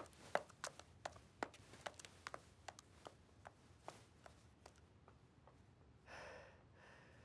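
A sparse run of light, sharp clicks, a few a second, growing fainter and dying out after about five seconds, then a soft breath about six seconds in.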